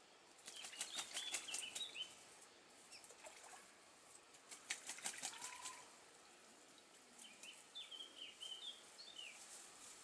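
Scarlet ibis bathing in a shallow pool, beating its wings in the water: two short bouts of splashing and flapping, one about half a second in and one around five seconds in. High bird chirps sound over the first bout and again near the end.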